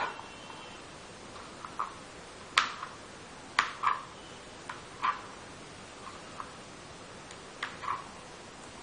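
Kitchen knife cutting vegetables on a chopping board: sharp, irregular knocks, roughly one a second, some in quick pairs.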